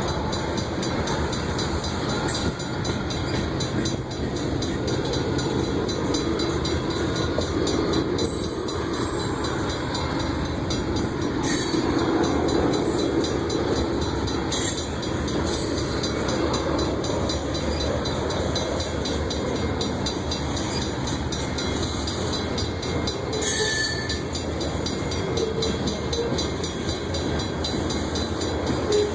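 A loaded grain freight train rolling past with a steady rumble of wheels on the rails, broken by a few short sharp sounds.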